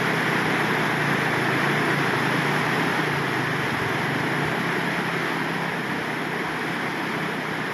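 Floodwater rushing in a swollen stream, a steady rush of noise, with a faint low hum underneath.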